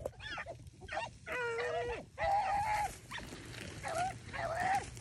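Beagles baying while running a swamp rabbit's track: about five drawn-out bays, the two longest around the middle and two shorter ones near the end. The baying is the sign that the hounds are on the rabbit's scent trail.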